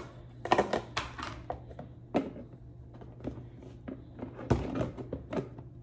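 Hard plastic food-storage containers being handled: scattered light clicks and knocks of plastic lids and baskets, with louder knocks about two seconds in and again near four and a half seconds.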